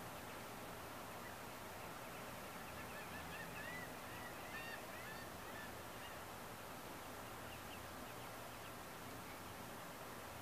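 Muscovy ducklings peeping faintly, a short run of small calls a few seconds in and a few more near the end, over a steady faint hiss.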